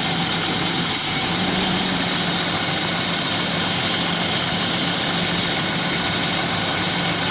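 1995 BMW 525i's inline-six idling steadily with its airflow meter unplugged. The idle sits slightly high, about 850 rpm where 750 is normal, because a cracked intake hose between the airflow meter and the throttle is leaking vacuum.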